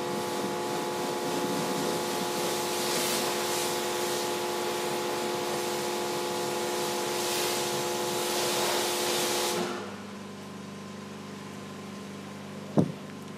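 Pressure washer running with a steady machine whine while its lance sprays water against the car, with a loud hiss, until the spray stops about ten seconds in. A lower steady hum carries on after that, and there is one short thump near the end.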